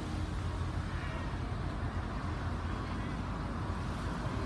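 A car driving past on the street, a steady low rumble of engine and tyres.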